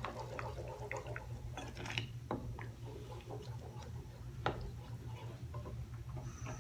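Tomato pizza sauce simmering in a pan, with scattered soft pops and small clicks over a steady low hum.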